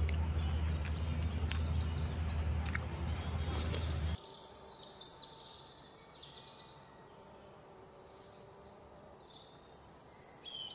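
A loud, steady low rumble that cuts off suddenly about four seconds in, then birds chirping and calling over quiet outdoor background noise.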